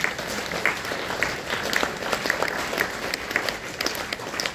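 Audience applause at the end of a poem: many hands clapping in a dense, steady patter.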